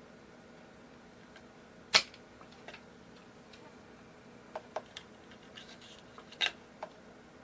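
A sharp click about two seconds in, then scattered lighter clicks and taps, with a stronger one near the end, from small tools and parts being handled while taking apart a guitar's wiring.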